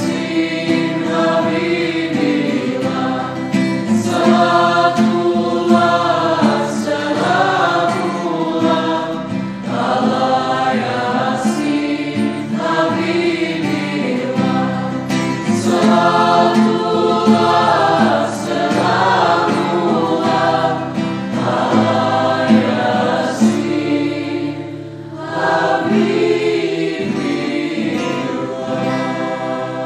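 Mixed choir of women's and men's voices singing in harmony, accompanied by acoustic guitar, with a brief dip in the singing near the end.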